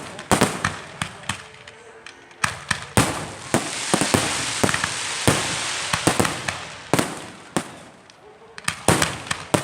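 Fireworks and firecrackers going off: a rapid, irregular series of sharp cracks and bangs, with a steady hissing rush for about three seconds in the middle.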